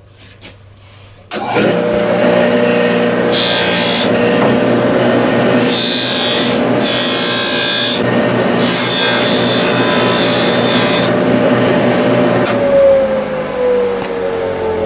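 Bench polishing motor switched on about a second in, running steadily with its cloth buffing wheel spinning; a rubbing hiss comes and goes as a bar of Tripoli buffing compound and then a copper bracelet blank are pressed against the wheel. Near the end the motor's hum drops slightly in pitch.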